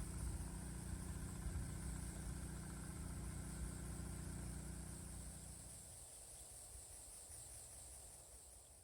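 A low, steady engine drone, like a motor running, fading out about six seconds in, over a continuous high-pitched insect buzz.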